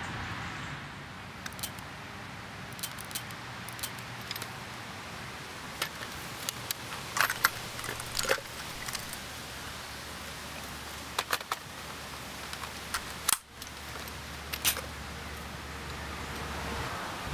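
Scattered sharp metallic clicks and rattles of a rifle being handled, several coming in quick succession around the middle, over a faint steady low hum.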